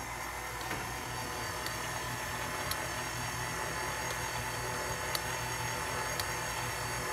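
KitchenAid stand mixer's motor running steadily, its flat beater turning through thick cookie dough in a stainless steel bowl, with a faint tick about once a second.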